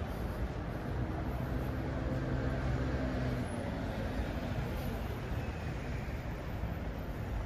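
Steady road traffic on a city street, with one vehicle's engine hum standing out from about one to four seconds in.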